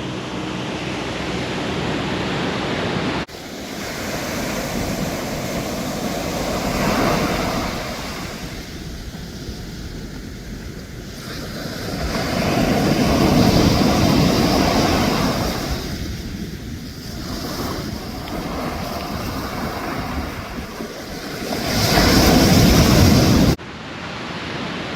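Ocean surf washing onto the beach, with wind on the microphone. The waves surge louder twice, a little past the middle and near the end, where the sound cuts off abruptly.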